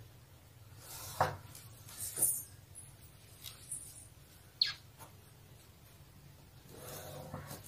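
Hands marking blouse-lining cloth with tailor's chalk and a measuring tape: a few short scrapes and rubs against the fabric, the sharpest about a second in and again about four and a half seconds in, over a faint steady low hum.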